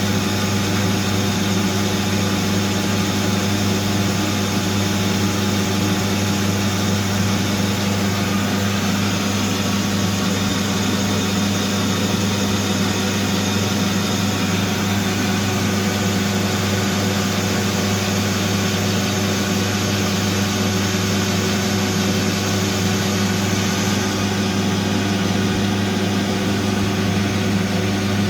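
Metal lathe running with a steady mechanical hum, unchanging throughout.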